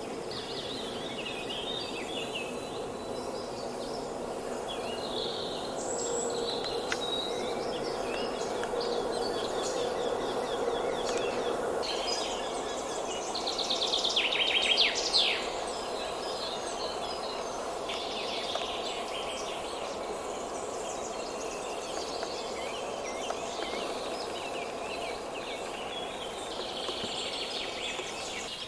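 Forest ambience: several birds chirping and singing over a steady low background hum. The calls are scattered throughout, with a louder run of quick trilling notes about halfway through.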